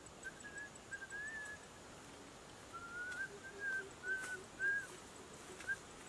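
A string of short, high whistled notes with small rises and falls in pitch, in two runs with a gap of about a second between them.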